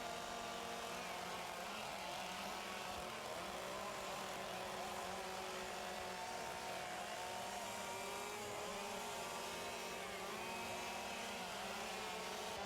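Several chainsaws running at once, their engine pitches rising and falling independently as they cut into wood.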